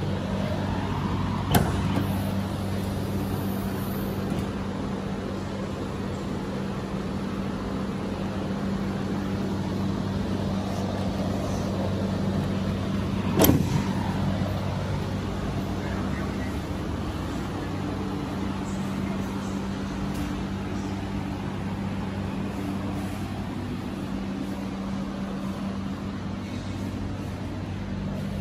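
Ford F-150 Raptor's 3.5-litre twin-turbo V6 idling steadily, with two sharp knocks, one about a second and a half in and a louder one about 13 seconds in.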